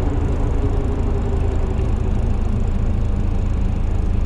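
Jeep TJ with a Cummins R2.8 four-cylinder turbo-diesel swap driving along, a steady engine and road rumble.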